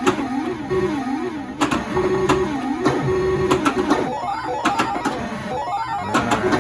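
Haunted House pinball game in play: a warbling electronic tune repeats over sharp clicks and knocks from the flippers and from the ball striking targets.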